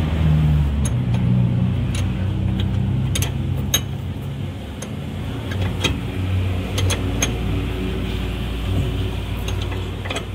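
Sharp metal clinks of a ratchet wrench and open-end spanner on the nut of a newly fitted steering drag link, about a dozen at irregular moments, over a steady low engine hum.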